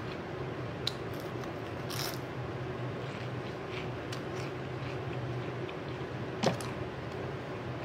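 Close-miked eating sounds: wet chewing and squishing of a lettuce-stuffed turkey sandwich, with a few sharp mouth clicks, the loudest about six and a half seconds in, over a steady low hum.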